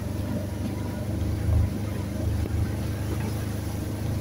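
Motorcycle engine running at low speed while riding, a steady low rumble over an even hiss, with a brief louder moment about a second and a half in.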